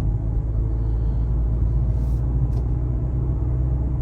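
Steady low rumble of road and engine noise inside the cabin of a moving 2019 Mazda CX-5, with two faint short ticks about two seconds in.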